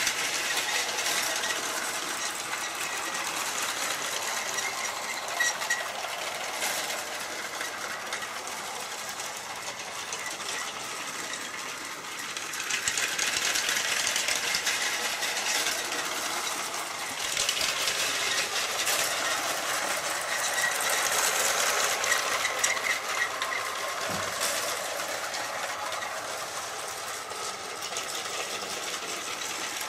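Vintage Lego electric train running on plastic track: a steady whirr of its small motor and gears with a light rattle of wheels on the rails. It swells and fades as the train circles nearer to and farther from the microphone.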